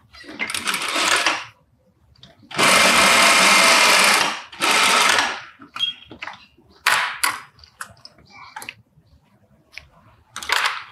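Industrial sewing machine stitching in short bursts, starting and stopping three times in the first half, with the longest run about a second and a half, then a few brief bursts and clicks. This is a seam being backtacked at the start and sewn.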